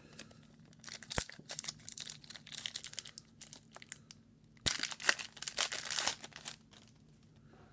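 A 2017-18 Upper Deck Hockey Series One hobby pack's plastic wrapper being torn open by hand, crinkling and tearing in two spells: about a second in, and again near five seconds. Each spell has a sharp snap in it.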